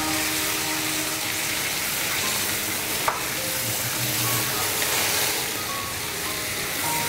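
Chopped peeled tomato with garlic and onion sizzling as it fries in olive oil in a metal pan over a gas burner, stirred with metal tongs. A single sharp metal clink sounds about three seconds in.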